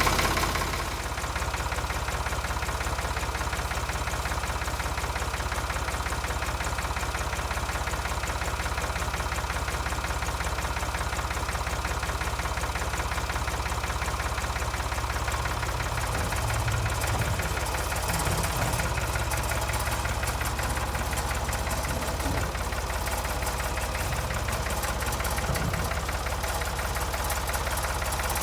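Ford 4500 backhoe's engine idling steadily, running again after a winter sitting.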